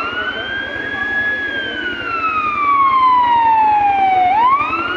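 Emergency siren wailing: the tone sweeps quickly up, holds high for a moment, then falls slowly for about three seconds before sweeping up again near the end.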